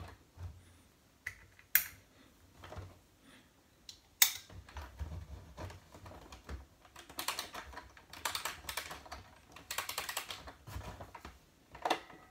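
Winding knob of an Arco Mickey Mouse wind-up scrolling-TV music-box toy being turned: runs of rapid ratcheting plastic clicks as the clockwork spring is wound. Before that come a couple of sharp single knocks from the plastic toy being handled, the one about four seconds in the loudest.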